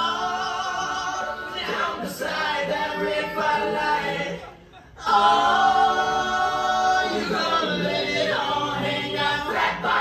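A song with held sung notes over a backing track. About halfway through it drops away for under a second, then comes back louder.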